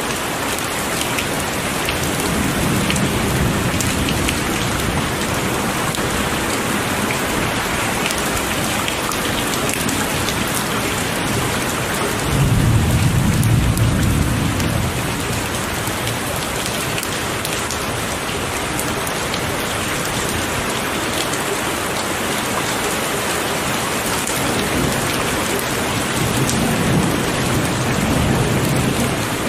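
Heavy rain falling steadily, with rolls of thunder rumbling underneath: a faint one a few seconds in, a louder one about twelve seconds in lasting a couple of seconds, and another near the end.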